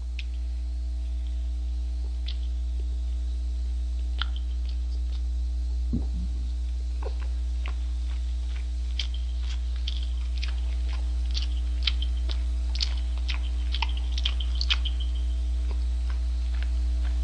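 Close-miked chewing of a mouthful of double cheeseburger: soft wet clicks and crackles, sparse at first and coming thicker in the second half. Under it runs a steady electrical hum.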